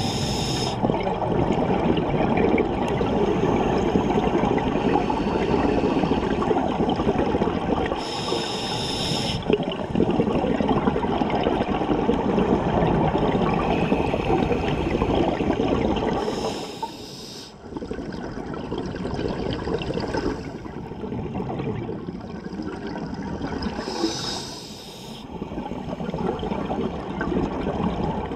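Scuba regulator breathing heard underwater: long stretches of exhaled bubbles, broken about every eight seconds by a short hiss of inhalation.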